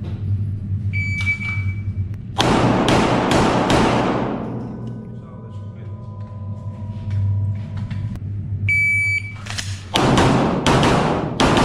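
Two strings of pistol fire on a competition shot timer. Each string starts with a single steady electronic beep and is followed about a second later by four quick handgun shots about half a second apart, each echoing. Background music plays underneath.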